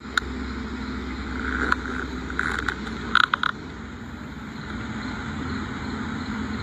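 A motor vehicle's engine running with a low rumble that stops about three seconds in, with a few sharp clicks and knocks over it.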